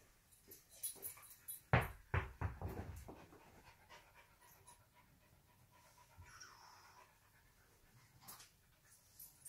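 A dog panting, with a few thumps about two seconds in.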